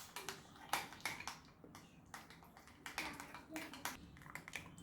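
Spoon stirring a thick yogurt-and-spice marinade in a bowl: irregular clicks and taps of the spoon against the bowl, with soft scraping between them.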